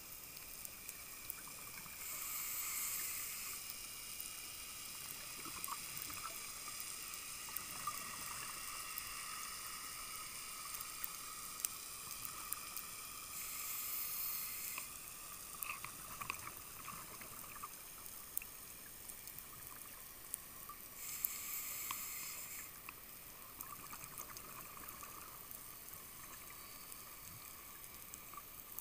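Scuba exhalation bubbles from a diver's regulator, heard underwater as three louder hissing bursts of about a second and a half each, roughly 2, 13 and 21 seconds in. Between them a steady faint underwater hiss with scattered sharp clicks.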